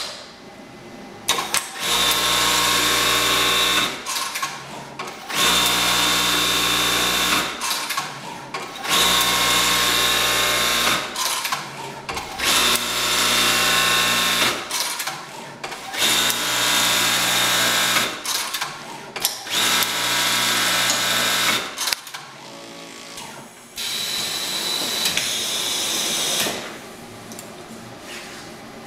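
Juki LBH-1790 electronic buttonhole sewing machine running in a repeating cycle: six runs of about two seconds each, with short pauses between them, each a steady fast mechanical buzz with a low hum. Near the end comes one different run of about two and a half seconds, a lighter whir without the low hum.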